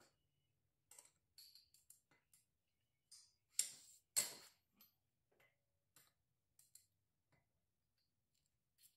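Faint, scattered metallic clicks of a long-handled wrench and socket on a car wheel's lug nuts as they are loosened, with two louder snaps about half a second apart near the middle.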